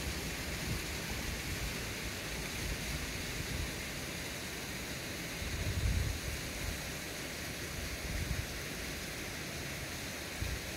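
Wind blowing over a phone's microphone: a steady hiss with irregular low buffeting gusts, the strongest about six seconds in.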